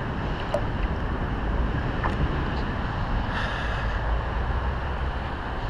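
Steady rush of river current close to the microphone, with a brighter sloshing hiss of water about three seconds in as the camera dips to the surface.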